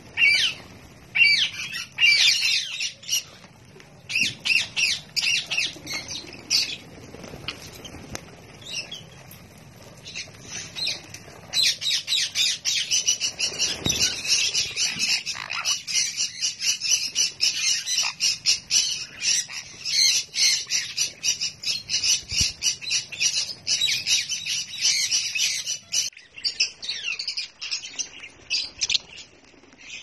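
Mixed flock of small parrots, sun conures and lovebirds, squawking and chattering: sharp high calls in loose bursts at first, then a dense, continuous chatter from about twelve seconds in, thinning out near the end.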